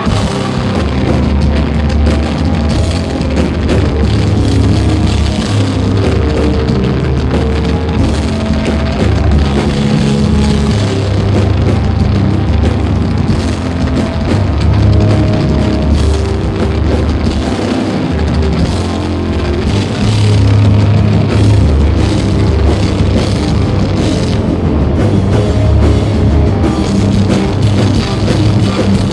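Live heavy metal band playing loud, with drums and electric guitars, captured on a camera microphone with poor, overloaded sound.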